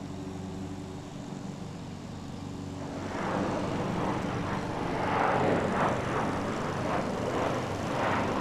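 Airliner passing overhead: a steady low drone, then the engine noise swells into a loud, uneven rush about three seconds in and stays loud.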